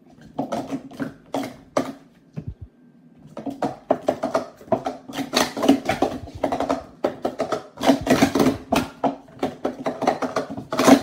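Speed Stacks plastic cups clattering in fast runs of clicks and clacks as they are stacked up and swept down in a doubles sport-stacking cycle on a StackMat. There is a short lull about two seconds in.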